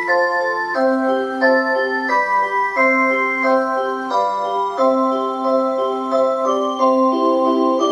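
Musical mantel clock playing one of its built-in songs: a tune of clear, held notes over a lower accompaniment.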